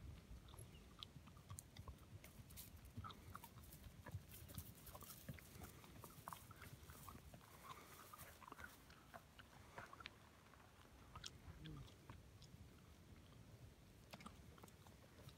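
Near silence, with faint scattered ticks and crackles.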